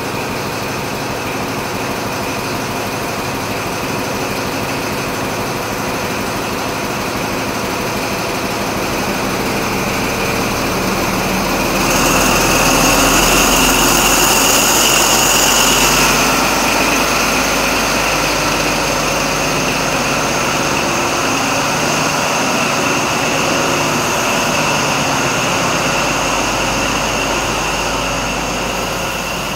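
Class 43 HST power cars' MTU diesel engines working hard as the train pulls away, a steady engine note with a high whine. About twelve seconds in the whine grows louder and rises a little in pitch, then eases back a few seconds later.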